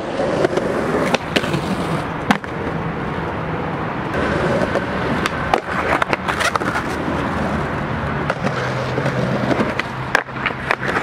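Skateboard wheels rolling on concrete, broken by several sharp clacks of the board's tail popping and landing, and the board sliding along a concrete ledge.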